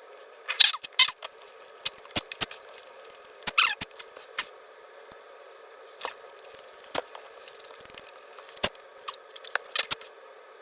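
Close-up eating sounds of a person chewing flaky pastry steak bakes: irregular wet mouth clicks and smacks with short crackly rustles, the loudest about half a second to a second in and again about three and a half seconds in.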